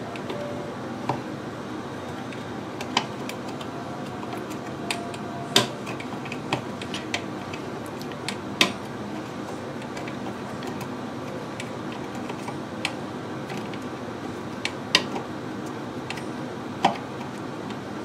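Irregular small metal clicks and clinks from a screwdriver and a toilet-seat hinge bolt and nut being worked loose by hand, over a steady background noise.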